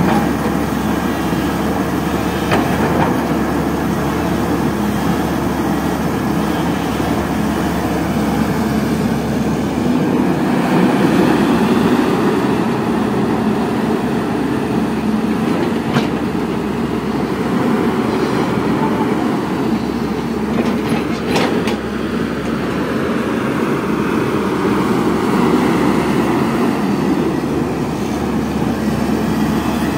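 Caterpillar 320D tracked hydraulic excavator at work: its diesel engine and hydraulics running steadily, with a few sharp knocks, one near the start and others around the middle.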